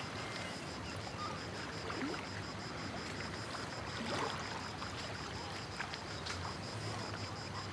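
Steady harbour ambience: a wash of sea water along the quay, with a faint high steady buzz behind it.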